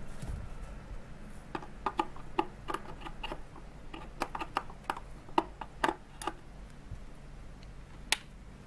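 Irregular small clicks and taps of a lamp being handled and pushed into its lampholder, then one sharp click near the end as the rotary dimmer's knob is pressed.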